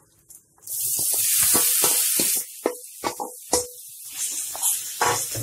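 Spiced raw banana slices tipped into hot oil in a wide pan, setting off a loud sizzle about a second in. It is followed by a run of clicks and knocks as the last pieces drop from the steel bowl, over a quieter sizzle.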